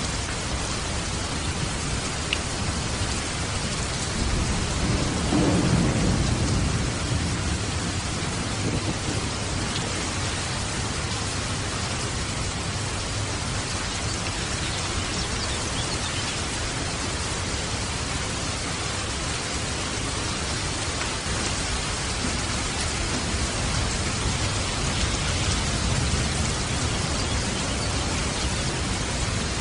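Steady rush of falling water and rain, an even hiss throughout. A low rumble of thunder swells about five seconds in and fades over a couple of seconds.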